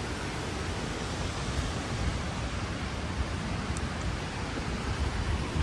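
Strong storm wind rushing through trees in a steady noisy roar, with gusts buffeting the microphone as a fluttering low rumble.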